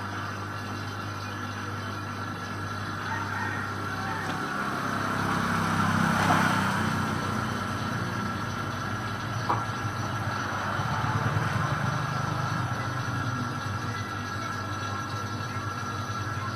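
A refrigeration compressor running with a steady hum, drawing flushing fuel through a freezer evaporator to clean out oil. It swells louder around the middle, with one sharp click about nine and a half seconds in.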